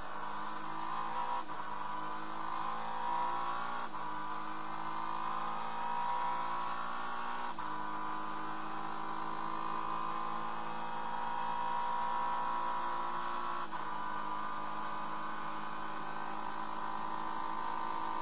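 Acura NSX GT3 race car's twin-turbo V6 heard from inside the cockpit, running steadily with its pitch climbing slowly and changing with a sudden step four times as it shifts gear.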